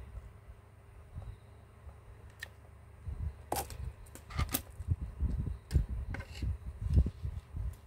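Small plastic and metal phone parts and hand tools clicking and knocking as they are handled and set down on a wooden desk, with several sharp clicks in the middle and dull handling thuds throughout.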